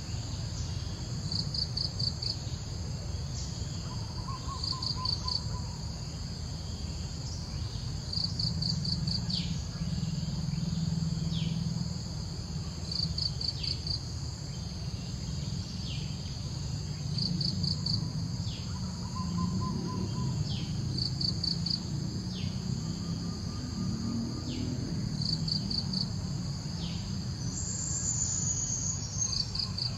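Insects chirping outdoors: short trains of four or five rapid pulses repeat about every two seconds over a steady high insect hum and a low background rumble.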